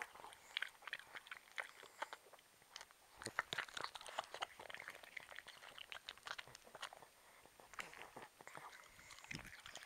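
Small dogs crunching and chewing small pieces of raw pear taken from the hand, in a run of short crisp crunches that come thickest about three seconds in and again near the end.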